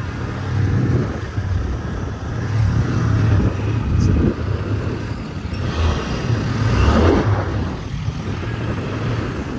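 Small motor scooter running as it rides across beach sand, heard through heavy wind rumble on the microphone, which swells twice.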